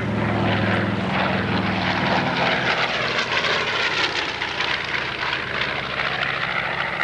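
A B-25 Mitchell bomber's twin Wright R-2600 Cyclone radial engines and propellers running at high power in a low, close flypast, a loud, steady drone.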